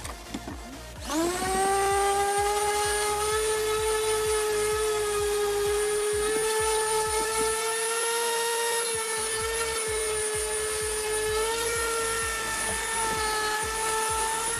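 An electric power tool's motor spins up with a rising whine about a second in, then runs at a steady high-pitched whine.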